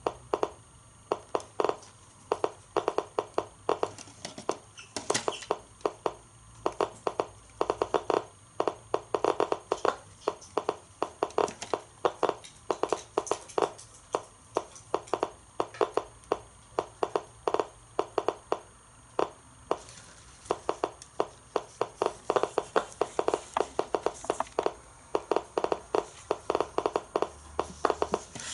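DP-5VB radiation dose-rate meter clicking at an irregular, random rhythm of a few clicks a second: it is counting radiation from the isotopic smoke detector's radioactive source.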